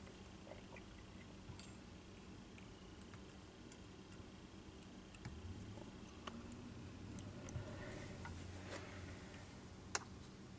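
Faint small clicks and ticks of fly-tying tools and materials being handled at the vise, over quiet room tone, with one sharper click near the end.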